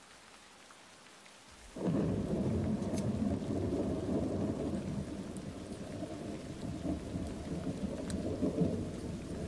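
Rain falling softly, then about two seconds in a sudden low rumble of thunder that carries on.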